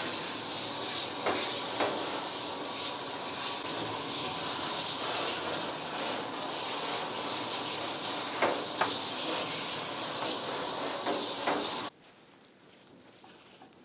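High-velocity pet dryer blowing a steady rush of air through a dog's coat, with a few short knocks. Near the end it cuts off suddenly as the dryer is switched off.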